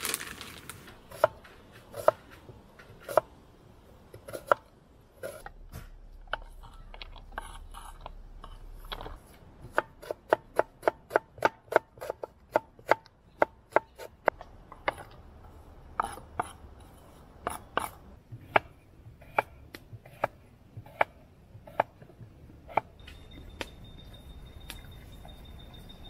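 Knife chopping vegetables on a wooden chopping board: sharp knocks of the blade hitting the board, spaced about a second apart at first, then a quick even run of about three cuts a second in the middle, then slower again.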